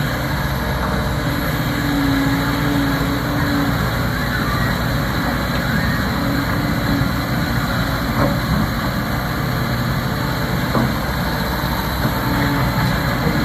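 Diesel engine of a Liebherr R 926 crawler excavator running steadily, with a higher hum that comes and goes a few times.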